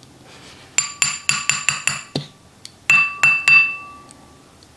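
Measuring spoon tapping against the rim of a small glass bowl, knocking cornstarch off into the bowl for a slurry: a quick run of about six clinks, then three or four more about a second later. The bowl rings clearly after each tap.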